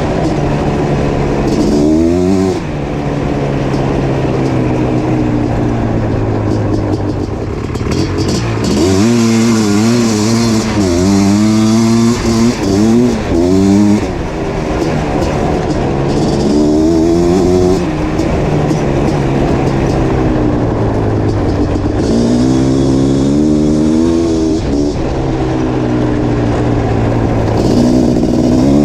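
Suzuki LT500R's 500cc liquid-cooled two-stroke engine with FMF exhaust, revving up and dropping back again and again under riding, with a run of quick, hard accelerations in the middle.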